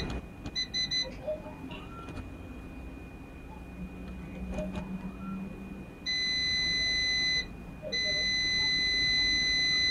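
Digital multimeter's continuity beeper sounding as the probes touch the pins of a power MOSFET: three short beeps about half a second in, then a steady beep held for over a second and another held from about eight seconds on. The held tone is the meter signalling a short between the pins.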